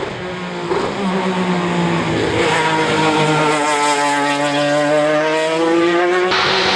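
Alfa Romeo 155 ITC/DTM race car's V6 engine growing louder as it approaches under hard acceleration, its pitch rising steadily after a brief dip. The tone changes abruptly near the end.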